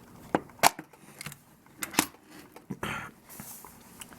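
Plastic carrying case of a precision screwdriver set being opened and handled: several sharp clicks and knocks, the loudest under a second in, and a brief scrape about three seconds in.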